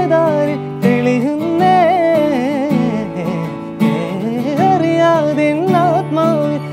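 A man singing a flowing melody to his own acoustic guitar accompaniment.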